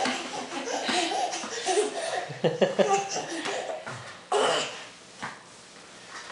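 Laughter in short bursts, mixed with a baby's giggles, dying down after about four and a half seconds.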